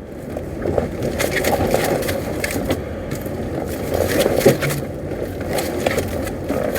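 Honda HR-V rolling slowly while wet, with irregular creaks, crackles and knocks from the front suspension over a low rumble. This is the rain-only suspension noise, which the mechanic attributes to the lower control arms.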